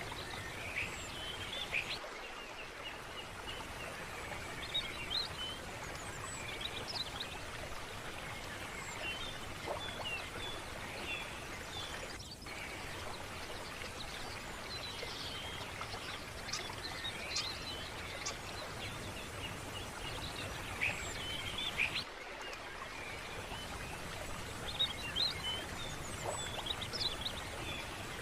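Birds chirping and calling in many short, high notes over a steady rush of running water. The sound dips briefly twice, about two seconds in and again near twenty seconds later.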